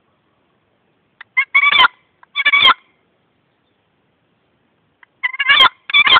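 Wooden box turkey call, its paddle lid stroked across the box by hand. It gives two short runs of turkey-like call notes about three seconds apart, imitating a wild turkey.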